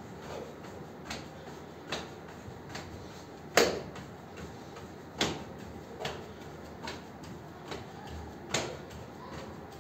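A person doing jumping jacks on a yoga mat: a sharp slap a little faster than once a second, in a steady rhythm, with one much louder slap about a third of the way in.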